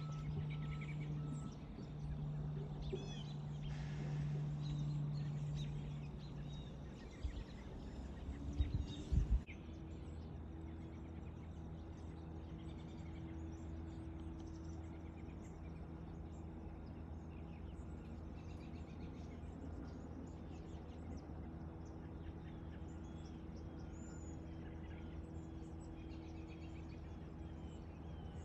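Outdoor field ambience: a steady low hum and faint scattered bird chirps, broken by a few sharp knocks about eight to nine seconds in.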